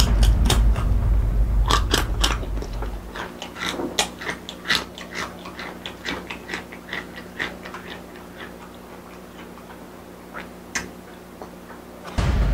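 Close-miked crunching of Blue Takis rolled tortilla chips being bitten and chewed: a quick run of sharp, crisp crunches that thins out to occasional ones after about eight seconds. A low rumble sits under the first three seconds.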